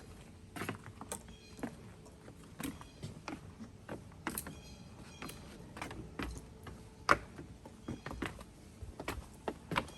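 Footsteps crunching irregularly on a leaf-littered forest trail, with one sharper crack about seven seconds in.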